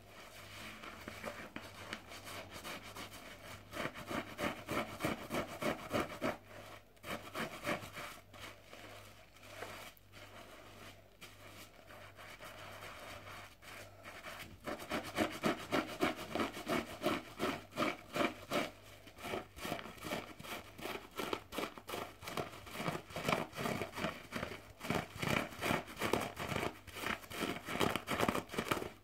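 A soapy bath sponge thick with foam is squeezed and scrubbed by hand close to the microphone, making wet squelching and crackling bubbles in quick repeated strokes. There is a quieter lull in the middle, and the strokes grow strong and steady from about halfway through.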